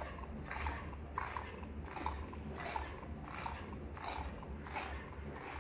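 SBM 320 label die-cutting machine running, full-cutting a printed label web: a regular stroke about every two-thirds of a second over a steady low motor hum.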